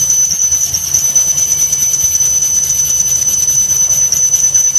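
CNC lathe cutting a metal workpiece under coolant, running steadily with a low machine hum and a constant high-pitched whine.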